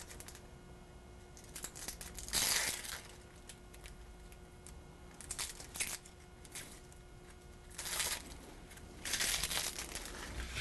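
Dry, papery onion skin being peeled off a halved onion by hand, crackling and tearing in a few short bursts.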